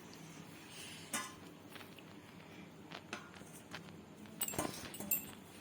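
Metal kitchen utensils clinking and tapping against pots and dishes: scattered light taps, then a quick cluster of sharper clinks with a short ring near the end.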